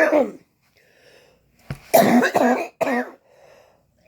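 A woman coughing, choking on a noodle stuck in her throat: the tail of one cough at the start, then three coughs in quick succession about two seconds in.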